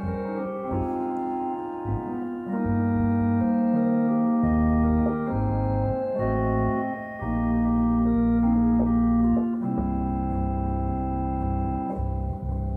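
Two-manual home organ playing slow, sustained chords, each held a second or two before changing, over deep bass notes.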